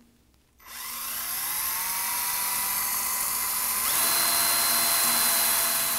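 Cordless drill boring a bolt hole through a lathe's electrical panel with a 15/64-inch bit. The motor starts about half a second in, its whine rising to speed, then runs steadily; its tone changes about four seconds in.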